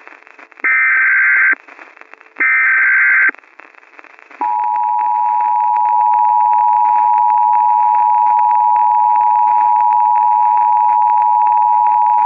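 Emergency Alert System signalling. First come two bursts, about a second each, of the SAME header's buzzy digital data tones. About four and a half seconds in, the EAS two-tone attention signal (853 and 960 Hz sounded together) starts and holds steady, over a faint hiss.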